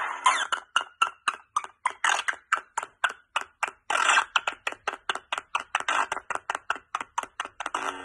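Lightsaber soundboard playing through its speaker in a rapid stutter, its sound chopped into short pieces about four or five times a second: the glitching typical of a bad or corrupted SD card holding the sound font.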